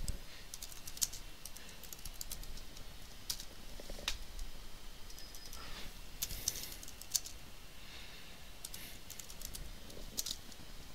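Computer keyboard being typed on: irregular runs of key clicks, with a few louder single keystrokes.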